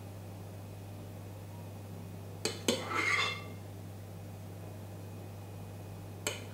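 A metal spoon clinks twice against a glass bowl, followed by a short scrape as whipped cream is wiped off it with a spatula. Another single clink comes near the end, over a low steady hum.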